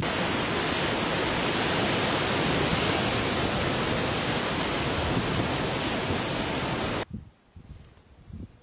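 Steady, even rushing noise like wind or surf on the microphone, with no tones or distinct events in it. It cuts off abruptly about seven seconds in, leaving only faint low rumbles.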